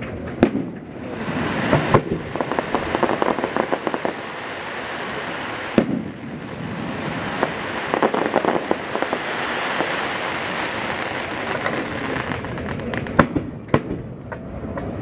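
Aerial fireworks shells bursting overhead with sharp bangs, then a long stretch of dense crackling from crackling-star effects. A couple more bangs come near the end.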